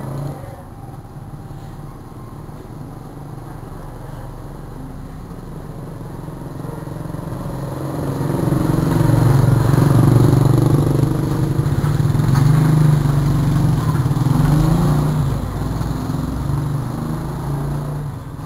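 A motor vehicle engine hum that builds up, holds loudest for several seconds in the middle, then fades away, like a vehicle passing by.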